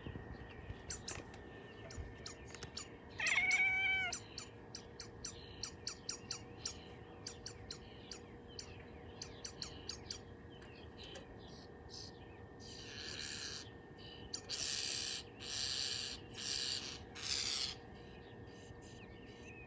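A Bengal cat gives one short pitched chirp about three seconds in, over quick faint clicks. Later come four or five short bursts of hissing noise.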